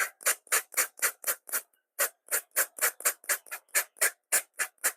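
Trigger spray bottle squeezed rapidly and hard, firing short jets of water at tent fabric about four times a second, with a brief pause a little before halfway.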